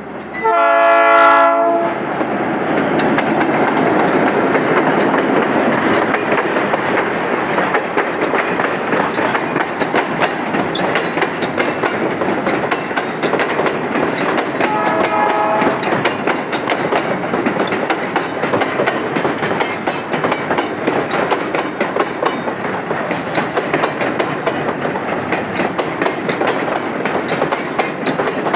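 GM GR12W diesel locomotive sounding its horn about a second in. Then the train's rumble and the wheels clattering over the rail joints as the wagons pass, with a second short horn blast about halfway through.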